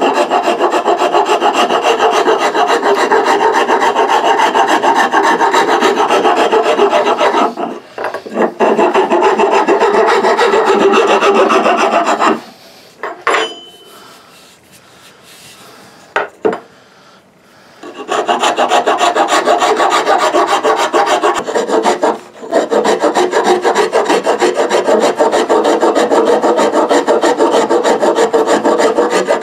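Hand rasp scraping back and forth along a wooden axe handle in rapid strokes, taking wood off to shape and thin it. The rasping breaks off briefly about 8 seconds in and stops from about 12 to 18 seconds, with a few light knocks while the handle is handled. It then resumes steadily.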